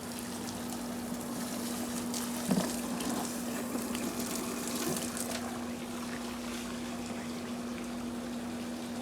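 Above-ground pool filter pump running with a steady electric-motor hum, water moving through it.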